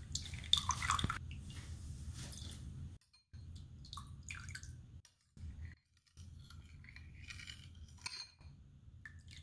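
A metal teaspoon stirring melted oil in a glass bowl, with faint clinks of the spoon against the glass, loudest in the first second or so.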